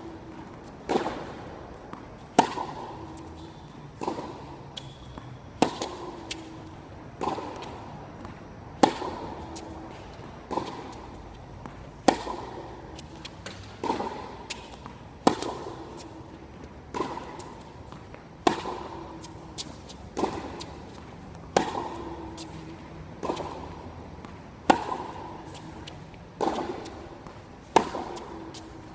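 Tennis ball struck by rackets in a steady baseline rally: a sharp pock about every second and a half, each with a short ringing tail under the court's roof.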